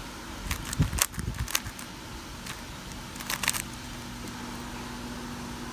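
GAN 356 X magnetic speedcube being turned quickly during a solve: quick plastic clicks and clacks of the layers snapping round, in two clusters, the first from about half a second to a second and a half in, the second a little past three seconds.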